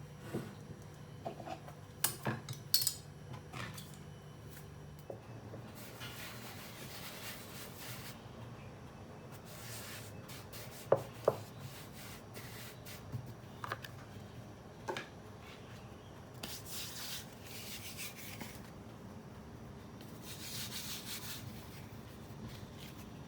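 Kitchen handling sounds from baking prep: several rubbing or scraping strokes a second or two long, with sharp clicks and clinks of utensils and a bowl about two seconds in and again around eleven seconds in.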